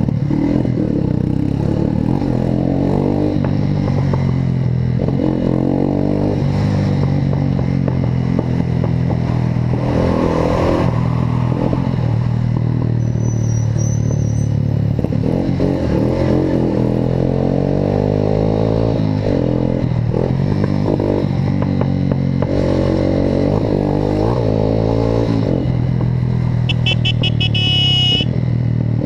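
Motorcycle engine running through an aftermarket Atalla exhaust while riding, its note rising and falling over and over as the rider opens and closes the throttle. A short high-pitched horn-like tone sounds near the end.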